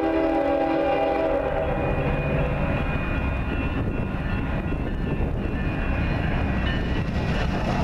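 Union Pacific freight locomotive horn sounding a chord that ends about two seconds in, then the steady rumble of the diesel freight train approaching the grade crossing.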